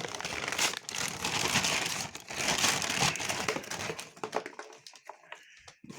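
Crinkling and rustling as a new motorcycle wiring harness in its wrapping is handled, dying away about five seconds in.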